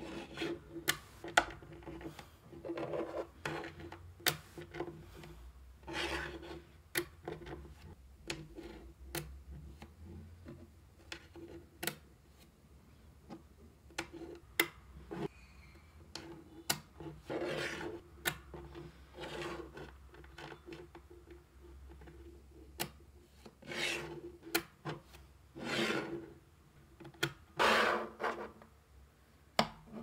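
Small magnetic balls snapping together in irregular sharp clicks, mixed with longer rasping rattles as clusters of balls are rolled and rubbed against one another.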